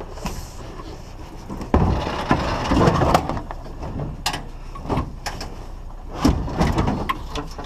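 A series of separate knocks and clunks, about one a second, over a low steady rumble.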